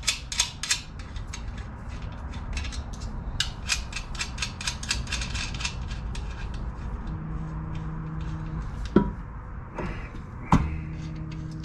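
Quick runs of short metallic clicks as nuts are fitted to the top mount of a new front strut and coil-spring assembly. Then two sharp knocks, about nine and ten and a half seconds in, as the strut assembly is set up into the wheel well against the suspension.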